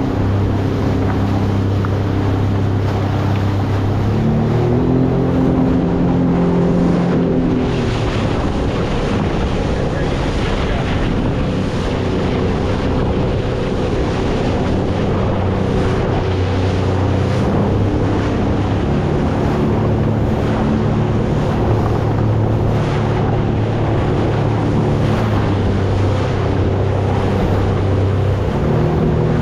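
Motorboat engine running under way at a steady pitch, revving up and settling back down between about four and eight seconds in, with water rushing past and wind buffeting the microphone.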